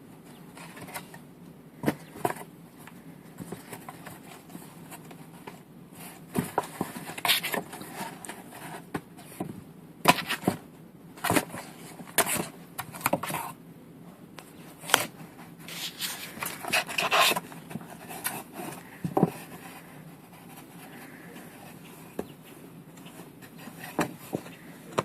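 Irregular rustling, scraping and knocking of cardboard as a cat moves about in a box, with a faint steady hum underneath.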